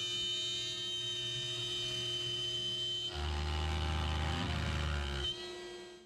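DeWalt router spinning as the spindle of a Genmitsu 4040 Pro CNC, a steady high whine. About three seconds in, a deeper rumble and a rougher cutting noise join for about two seconds as the bit works through the wood, then the sound fades near the end.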